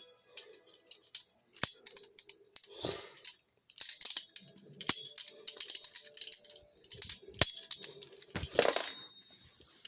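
Viper Tech VT Balihoo balisong trainer being flipped: irregular metallic clicks and clatters as the handles swing around and knock against the tang and pins, in quick runs with short pauses.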